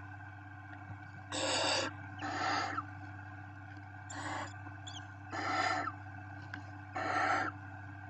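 Barn owl chicks giving hissing, rasping begging calls: five separate hisses of about half a second each, the typical food-begging sound of barn owl nestlings.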